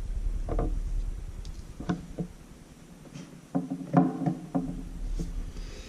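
Scattered light clicks and knocks of the camera and its plastic parts being handled, with a cluster of several knocks just before the middle of the stretch.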